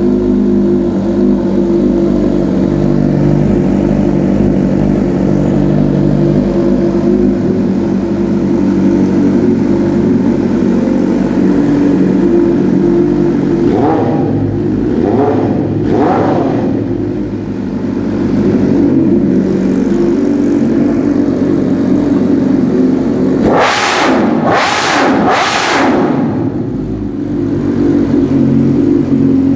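Motorcycle fitted with a heavy-sounding exhaust, idling steadily, then blipped three times in quick succession about halfway through and revved harder three more times near the end, each rev rising and dropping back to idle.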